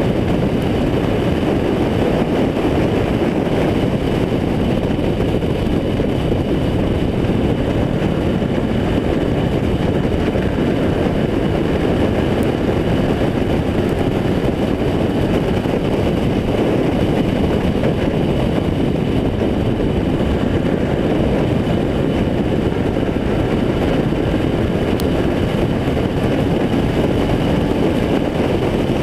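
A Renegade-class race car's engine running at racing speed, heard on board: a loud, steady, unbroken rumble with no clear rises or falls in pitch.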